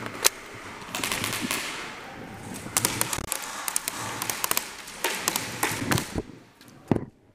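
Airsoft guns firing in short rapid bursts of sharp clicks and pops, several bursts in a row, then a single sharp crack near the end.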